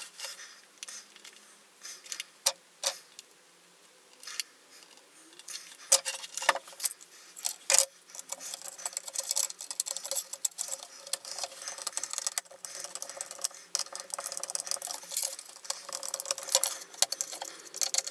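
Small hard objects being handled: scattered light clicks and knocks at first, turning into a busy, almost continuous rattling clatter from about six seconds in.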